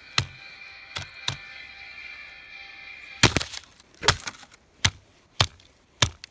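A heavy weight plate repeatedly smashed down onto a cheap portable speaker's circuit board and battery on icy ground: about eight sharp cracking blows, roughly one a second. Music still playing through the speaker cuts out at the loudest blow, about three seconds in, as the board is wrecked.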